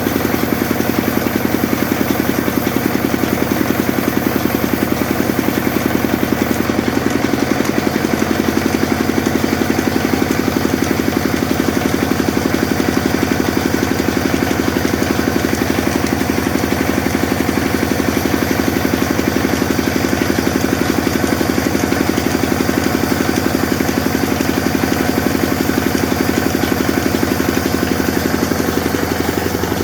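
Sawmill machine running steadily: a constant engine-like hum that holds the same pitch and loudness throughout.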